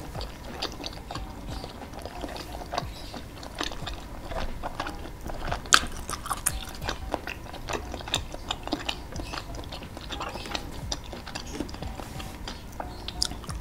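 A person chewing skewered meatballs in chilli sauce: repeated wet mouth clicks and smacks, with one sharper click about six seconds in.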